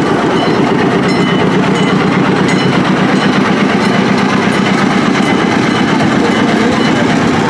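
Engine of a small narrow-gauge diesel locomotive running loud and steady, with a rapid even pulse, as the locomotive rolls slowly past close by.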